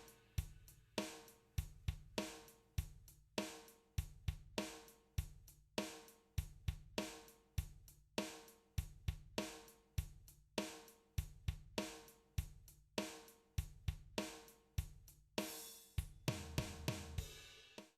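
Background music with a drum-kit beat of kick, snare and hi-hat, about two hits a second.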